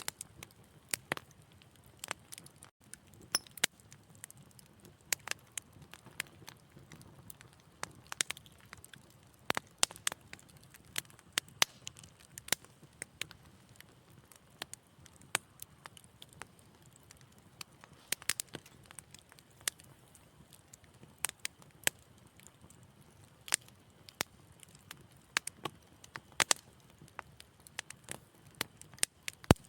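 Wood fire in a fireplace crackling, with irregular sharp pops and snaps every fraction of a second to a second over a faint low hiss of burning.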